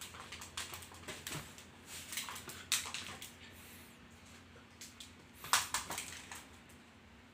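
A puppy scrambling about and playing on a vinyl floor: scattered clicks and scrapes of claws and paws, with louder scuffs about three seconds in and again about five and a half seconds in.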